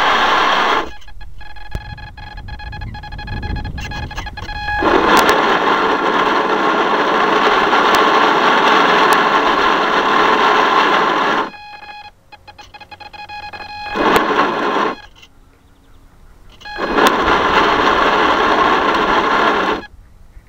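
A small motor running at a steady pitch in bursts of several seconds, switching on and off abruptly four times, with a quieter low rush between the bursts.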